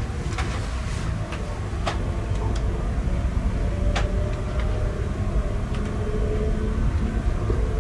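Passenger train running, heard from inside the carriage: a steady low rumble with a few irregular sharp clicks as the wheels pass over rail joints and points.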